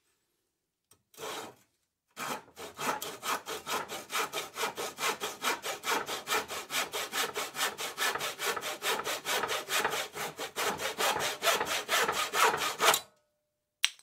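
Handsaw sawing through wood: one short stroke, a pause, then a long run of quick, even back-and-forth strokes, about four to five a second, that stop about a second before the end. A single sharp click follows near the end.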